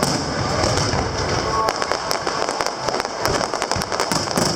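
Aerial fireworks going off: a dense run of overlapping bangs and crackles over a continuous low rumble.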